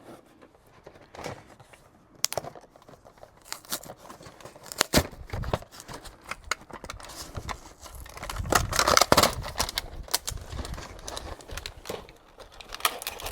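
Plastic packaging crinkling and tearing as it is handled, with irregular rustles and sharp clicks, loudest about nine seconds in.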